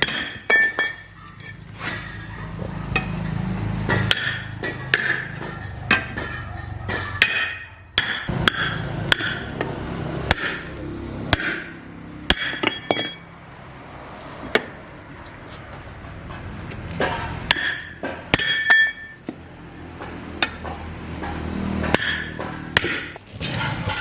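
Irregular metal strikes and clinks, a hammer or hand tool hitting metal parts, each ringing briefly. A low hum sits under them for the first few seconds.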